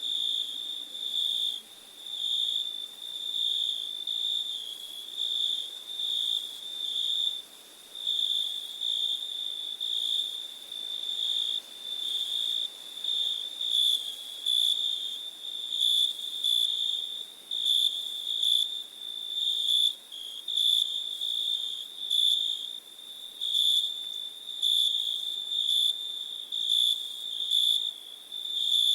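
Crickets chirping: a high-pitched, pulsing trill that keeps an even rhythm.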